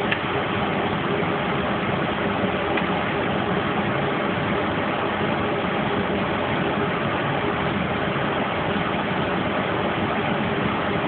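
Steady hissing drone with a faint low hum, unchanging throughout, and a single short click right at the start.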